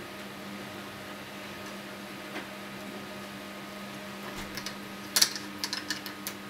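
Sharp plastic clicks and knocks about five seconds in, as snap-together parts of an electronics construction kit are handled and pulled off the base grid, over a steady low hum.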